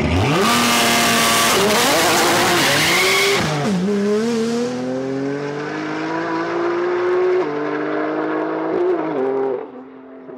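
A high-performance car launching hard, its tyres spinning and squealing for the first three seconds or so. It then accelerates through the gears, the engine pitch climbing and dropping back at each upshift, and the sound drops away sharply near the end.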